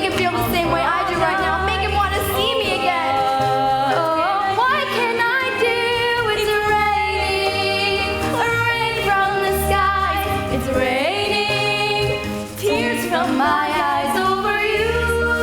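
A woman singing a ballad with long, held, wavering notes over a live band accompaniment with a steady low bass line.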